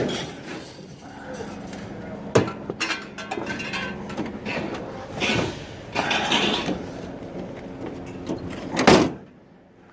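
Scrap metal being unloaded: scattered clanks and knocks over a steady low hum, with a sharp bang about two seconds in and a louder one near the end.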